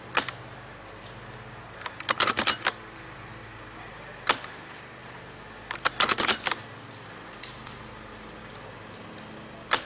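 Airsoft gunfire: single sharp shots near the start, a little after four seconds and near the end, and two short bursts of rapid-fire clicks at about two and six seconds.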